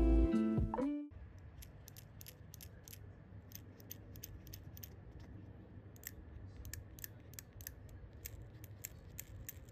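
Background guitar music fades out within the first second, then faint, irregular sharp clicks and ticks, about two or three a second, from small objects being handled.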